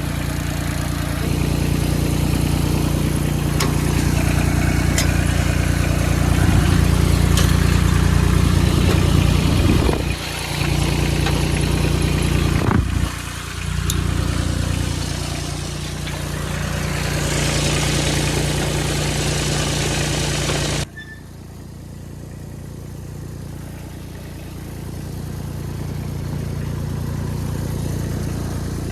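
Kubota BX24 sub-compact tractor's three-cylinder diesel idling steadily, with a few sharp clicks over it. About two-thirds of the way through, the sound drops suddenly quieter and the idle carries on underneath.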